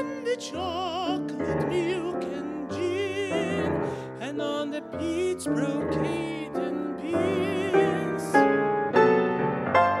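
A singer holds long notes with a wide vibrato over grand piano accompaniment; a little after eight seconds in the voice stops and the piano plays on alone.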